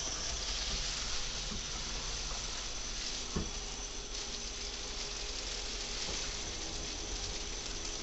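Shower water running in a steady hiss from a hose-fed hand shower while a dog is washed in a bathtub, with a single knock about three and a half seconds in.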